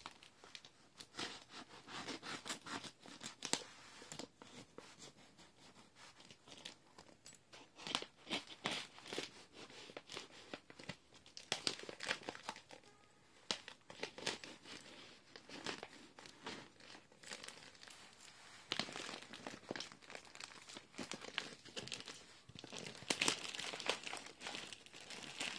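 A plastic shipping bag being torn open and crumpled by hand: irregular crinkling and crackling with short tearing spurts, busiest near the end.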